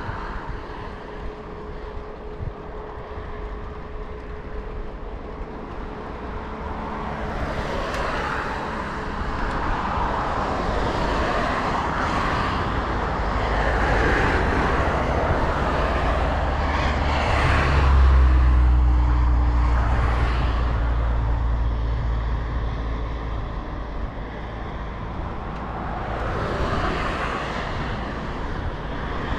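Road traffic passing close by, car after car, each one's tyre and engine noise swelling and fading. A deep low rumble is loudest for several seconds in the second half.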